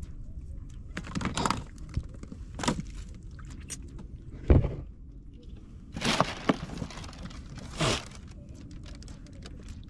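Handling noises in a small wooden outrigger boat as a fisherman deals with a fish on his hand line: a handful of scattered rustles, knocks and scrapes, with one heavy thump about halfway through, over a steady low rumble.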